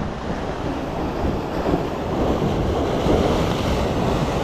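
Ocean waves washing steadily, with wind rumbling on the microphone; the surge swells slightly about three seconds in.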